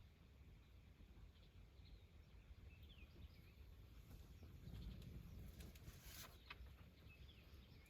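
Near silence: faint background noise with a few short, faint high chirps about three seconds in and a few soft clicks near the end.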